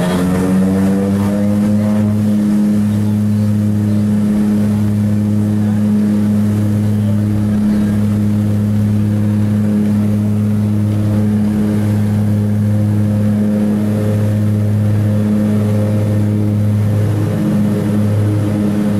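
Propeller plane's engines at takeoff power, heard from inside the cabin: a loud, steady drone that rises in pitch over the first second or two as power comes up, then holds through the takeoff run.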